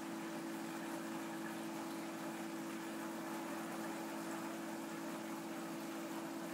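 Aquarium pump running: a steady electric hum over a constant hiss of water and rising air bubbles.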